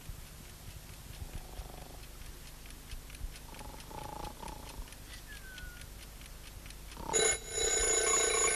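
A clock ticking steadily, then an alarm clock ringing loudly from about seven seconds in, the alarm to wake someone up.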